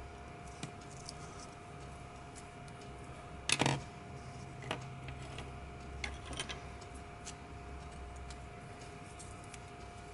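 Small clicks and knocks of felt-tip pens being handled: capped, set down on a wooden desk and picked up. The loudest is a sharp clatter of clicks about three and a half seconds in, with a few lighter clicks after it, over a faint steady hum.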